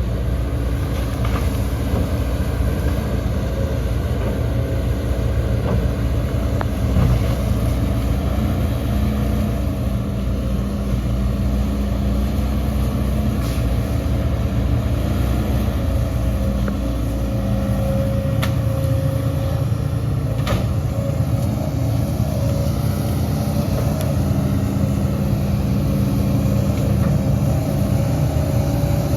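Heavy diesel engines of earthmoving machinery running steadily under load, with a few sharp clanks in the second half.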